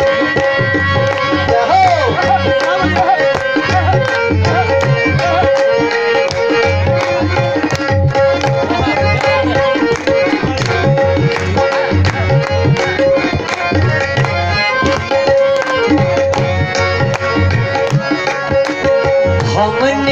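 Harmonium playing an instrumental interlude of a devotional bhajan with sustained reedy notes, accompanied by a hand drum keeping a steady rhythm. A singer's voice comes back in right at the end.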